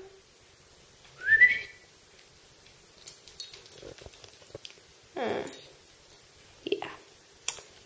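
A dog whining: a short rising whine about a second in, then a longer falling whine about five seconds in, with scattered light clicks and taps between and a brief sound near the end.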